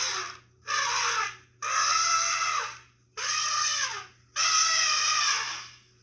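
Elephant trumpeting sound effect: a string of about five loud trumpet calls, each about a second long, with short breaks between them.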